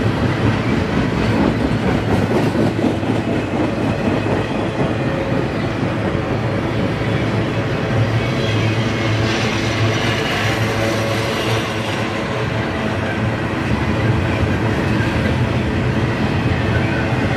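Double-stack intermodal container cars of a freight train rolling past close by: a steady rumble and clatter of steel wheels on the rails. A brighter hiss swells for a couple of seconds in the middle.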